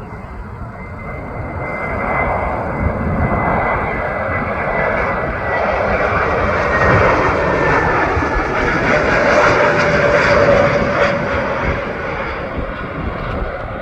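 Jet engines of an Airbus A321 airliner flying past on approach to land. The sound builds to a peak about ten seconds in and then fades, with a high whine that slowly falls in pitch.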